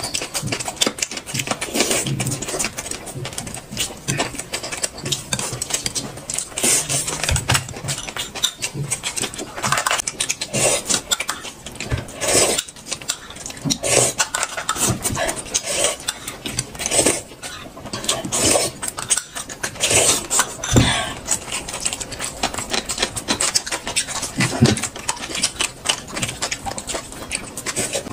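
Close-up eating sounds: irregular chewing and lip-smacking, with occasional clinks of dishes and cutlery.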